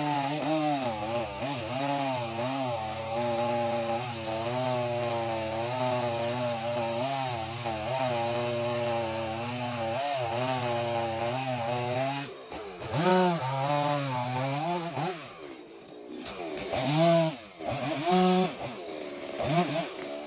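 Chainsaw engine running under load while cutting wood, its pitch wavering steadily. After about twelve seconds the cut ends and the engine revs up and down several times, with brief drops between revs.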